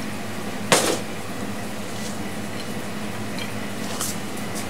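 Steady hum of kitchen ventilation, with one sharp clink of kitchenware a little under a second in and a couple of faint ticks near the end.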